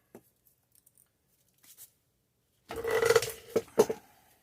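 Scraping and clattering of hard parts being handled, with a brief ringing tone about three seconds in, followed by two sharp knocks.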